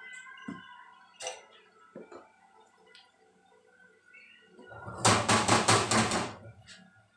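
A few light clinks, then a spatula scraping and working a pancake in a frying pan: a rapid, rough scraping for about a second and a half near the end.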